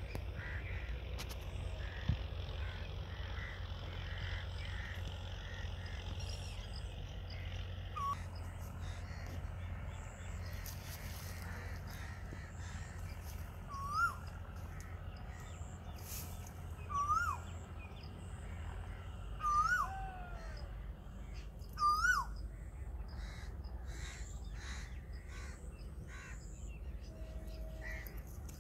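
A bird calling five times, a few seconds apart: short clear calls that rise and then drop in pitch. Under them runs a steady low rumble.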